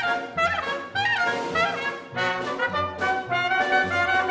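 Chamber ensemble playing lively music: a bright melodic line with short pitch slides over a low bass note that repeats about every half second.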